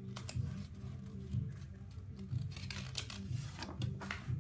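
Pages of a picture book being handled and turned: scattered soft papery rustles and light clicks, over a low steady hum.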